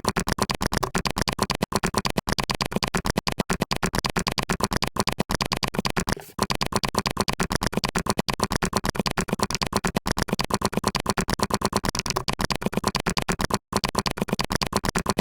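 Very fast typing on a computer keyboard: a rapid, unbroken run of keystroke clicks at about a dozen a second, pausing briefly about six seconds in and again near the end.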